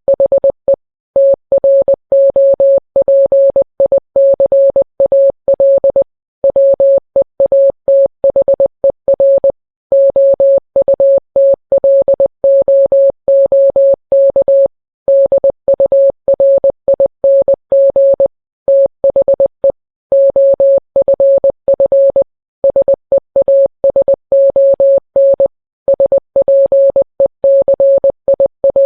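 Morse code sent as a single steady beep tone keyed on and off in short and long beeps, with longer pauses between words every few seconds. It spells out a message about the tropical weather outlook.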